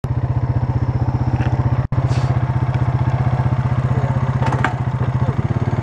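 ATV engine running steadily close up, a regular fast thumping pulse, with a very short break about two seconds in and a slight change in its note near the end.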